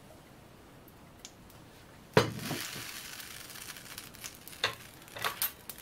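Olive oil in a stainless steel frying pan: a sharp knock about two seconds in, then a sizzle that fades over the next couple of seconds, followed by a few light clicks of a metal spoon against the pan.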